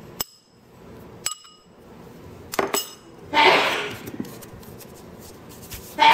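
A metal spoon clinks a few times against a glass bowl as roasted garlic and shallots are knocked out into a stone mortar, each clink ringing briefly. About three seconds in and again at the end comes a short, louder rush of noise.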